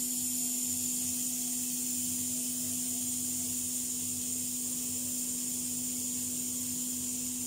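Aluminium stovetop pressure cooker on a gas burner, steam hissing steadily from its valve, with a constant low hum underneath.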